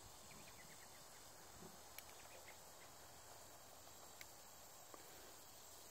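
Near silence: a faint steady high insect drone, crickets, with a few faint clicks.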